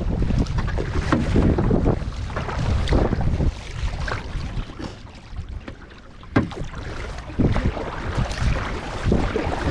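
Kayak being paddled: the paddle blades dip and splash in a repeating stroke, over wind rumbling on the microphone, heaviest in the first few seconds. One sharper hit stands out a little past six seconds in.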